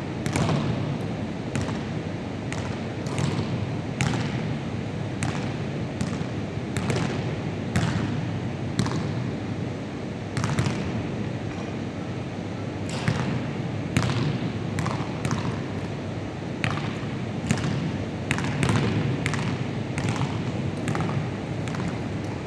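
Basketballs bouncing on a wooden gym floor, irregular thuds about one to two a second, echoing in a large hall over a steady low background rumble.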